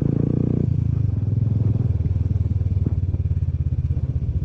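Royal Enfield Classic 500's single-cylinder engine running steadily under way, heard from the rider's seat. The note softens a little shortly before a second in.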